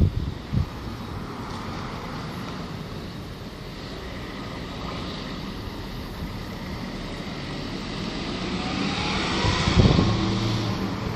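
Strong wind blowing and buffeting the microphone, swelling to a louder gust near the end.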